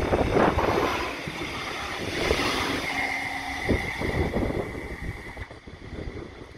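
A Bombardier Flexity 2 tram passing close and running away along the track. The rumble of wheels on rail is loudest at first. A steady high whine comes in about two seconds in and lasts a couple of seconds. The sound fades as the tram recedes.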